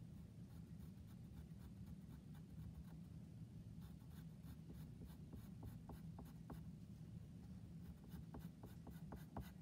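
Faint scratching of a drawing tip on paper as short strokes are drawn, more frequent from about four seconds in, over a low steady hum.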